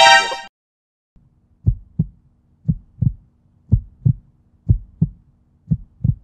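Heartbeat sound effect: paired low thumps, lub-dub, about once a second over a low hum, starting about a second in. It is preceded by a short, shrill burst at the very start.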